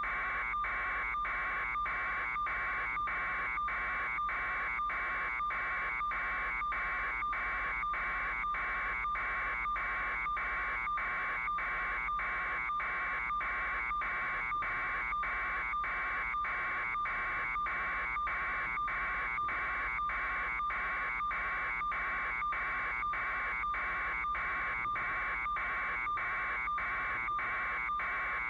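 Steady buzzing tone, broken by short regular dropouts about one and a half times a second.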